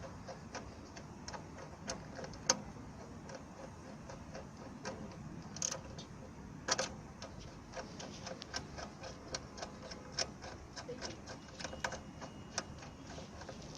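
Scattered light clicks and taps over a low steady background hiss, irregular and coming more often in the second half: hands handling the cable connections of the solar power system.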